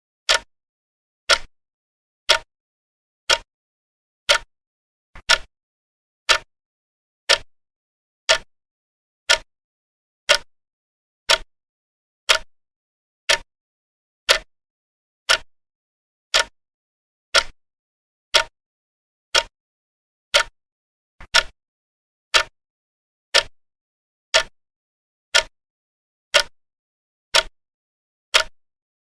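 Clock ticking slowly and evenly, about one tick a second, each tick a short sharp click with silence between.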